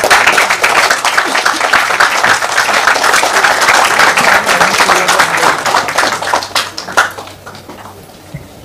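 Audience applauding with many hands clapping at once. The clapping thins out and stops about seven seconds in.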